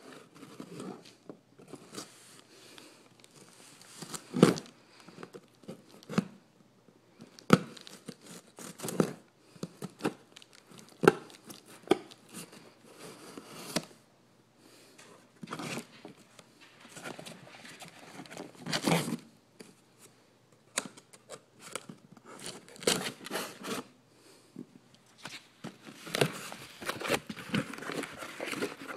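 A cardboard shipping box being opened: packing tape slit and torn, flaps pulled open, and paper packing crinkled and crumpled. It comes as irregular rustling bursts with sharp clicks and scrapes.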